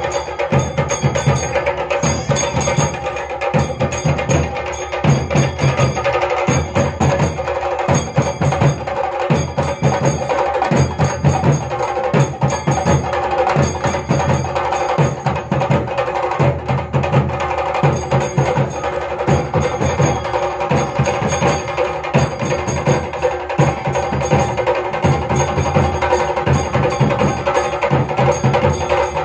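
Chenda drums beaten with sticks in a fast, driving rhythm, with a steady metallic ringing over the beat.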